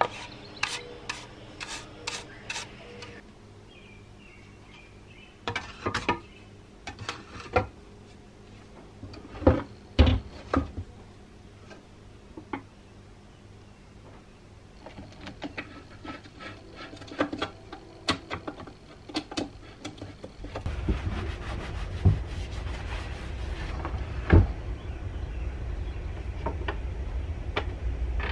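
Scattered knocks and clicks of hand tools and chainsaw parts being handled and set down on a wooden workbench during reassembly. About two-thirds of the way through, a steady low rumble starts underneath.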